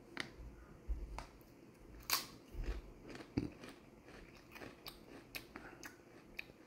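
Ruffles ridged potato chip being bitten and chewed: irregular crisp crunches and cracks, the loudest about two and three and a half seconds in.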